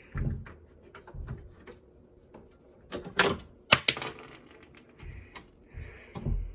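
Irregular clicks and knocks of a Yale Assure smart lever lock and the door being handled, plastic and metal parts snapping and bumping, with a few heavier knocks about three to four seconds in.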